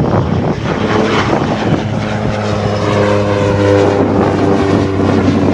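Propeller engine of a skydiving plane at full takeoff power, a loud steady drone as the plane takes off.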